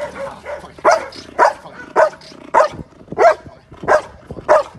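Belgian Malinois barking repeatedly in excitement for a ball toy held above it: about seven sharp barks, evenly spaced, a little under two a second.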